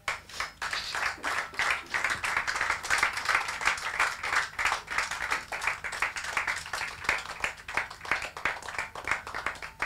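Congregation applauding: many hands clapping, starting about half a second in and thinning out near the end.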